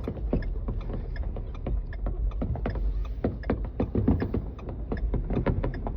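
Fireworks popping and crackling, many sharp irregular pops a second, over a steady low rumble.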